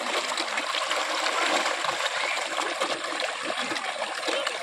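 A shoal of large river fish thrashing and splashing at the water's surface as they jostle for food: a continuous mass of small splashes with no pauses.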